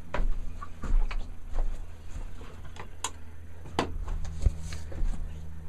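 Footsteps and camera-handling knocks: irregular taps and thuds, a few sharper ones, over a steady low hum.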